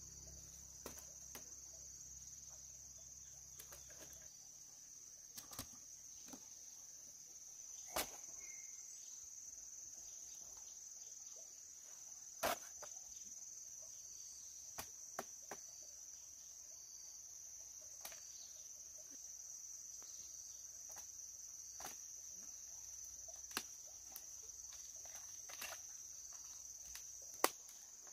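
Steady high-pitched chorus of insects, with scattered short knocks and taps as heavy grapefruit are handled and set into a woven bamboo basket; a few of the knocks are louder.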